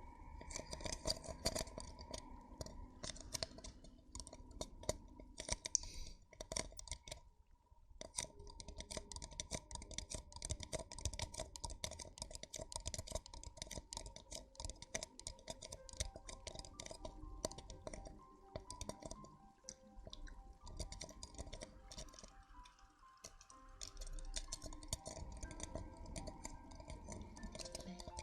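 Close-miked ASMR trigger sounds: rapid, fine crackling, scratching and clicking on the microphone, with a short pause about seven seconds in, over faint background music.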